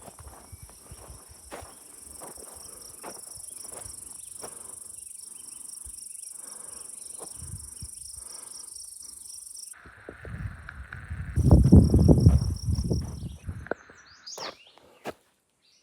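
A steady high, pulsing chorus of insects trilling, over light footsteps on a trail. About ten seconds in, the insect sound drops out and a loud low rumble takes over for a few seconds; it is the loudest thing heard.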